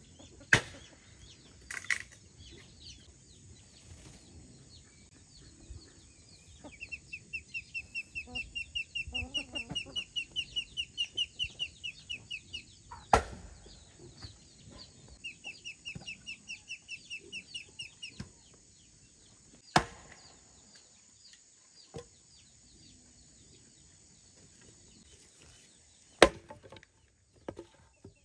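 Sharp chopping blows, a handful of them spaced irregularly a few seconds apart. Between them come two long runs of rapid, even, high chirps at about four to five a second, the first lasting about six seconds and the second about three.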